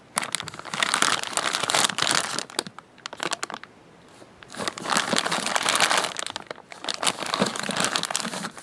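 Thin clear plastic bags crinkling as the sealed toy monster trucks inside are handled. The crackle comes in runs and dies down for a moment about three seconds in, then picks up again.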